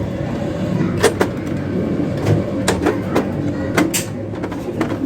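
Several sharp clicks and knocks, irregularly spaced, over a steady low background rumble.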